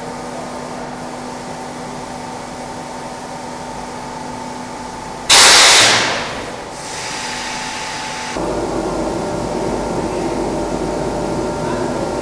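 EPS foam block moulding machine: a steady mechanical hum, then about five seconds in a sudden loud hiss of air that lasts about a second and dies away, a softer hiss after it, and from about eight seconds a louder steady rushing rumble. It comes as the tilted mould swings level and shuts.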